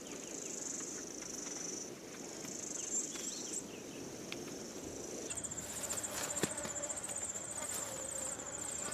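Insects trilling in a high, steady drone that breaks off briefly about two seconds in. A little past five seconds a pulsing, rapidly repeating trill takes over, with a lower steady tone beneath it.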